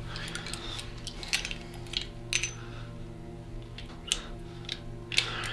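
A sustained, steady low drone from the film's score, with scattered sharp clicks and short hisses over it, about five of them.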